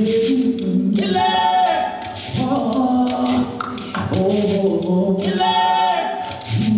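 Several voices singing together, mostly unaccompanied, in held, sliding phrases, with a few sharp percussive clicks near the start and near the end.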